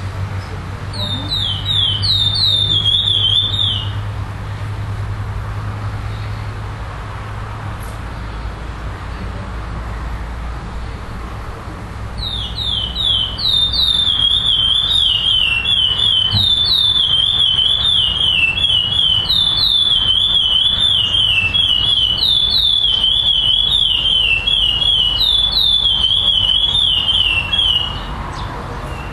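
Male curió (chestnut-bellied seed finch) singing rapid, repeated down-slurred whistled notes: a short phrase about a second in, then a long unbroken song from a little under halfway to near the end.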